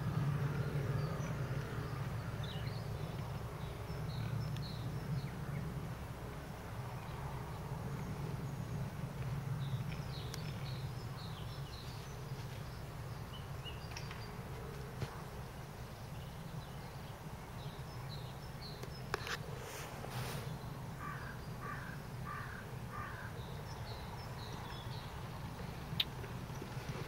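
Outdoor ambience: a steady low rumble with scattered short bird calls, and a quick run of about eight repeated calls roughly two-thirds of the way through. A few sharp clicks stand out briefly.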